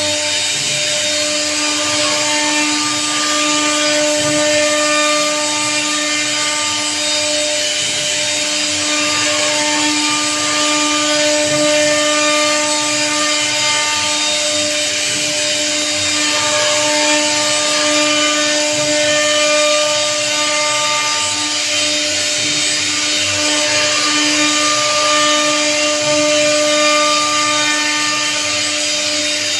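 CNC router spindle running steadily with a high whine over a hiss of cutting, its bit carving a relief design into a teak door panel.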